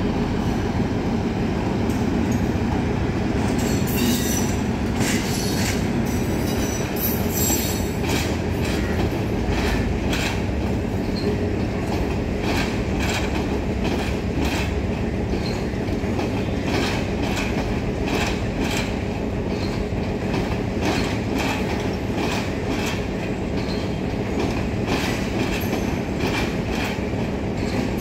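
Class S11 diesel multiple unit pulling slowly out of the station, its wheels clacking over rail joints and points in an uneven rhythm over a steady engine rumble and hum.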